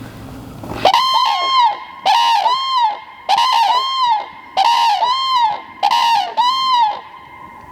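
Common cranes trumpeting: a run of loud, rolling bugle calls in quick succession that begins about a second in and stops shortly before the end.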